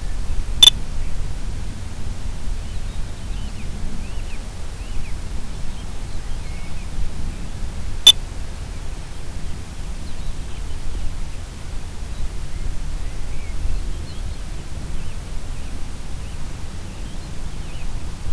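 Steady rushing noise, heaviest in the low end, broken by two sharp clicks about seven seconds apart.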